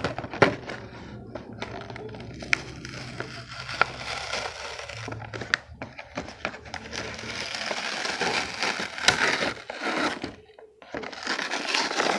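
Close-up crinkling and crunching of plastic packaging being handled and squeezed, with many small sharp crackles; it grows louder about two-thirds of the way through.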